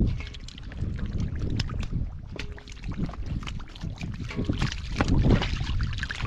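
Shallow muddy water splashing and sloshing in quick irregular strokes as catfish thrash and hands and feet work through the puddle, over a low rumble of wind on the microphone.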